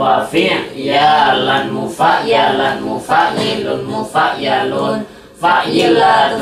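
Group of young male voices chanting Arabic morphology lessons in unison to a sung melody, without accompaniment, with a short breath pause about five seconds in.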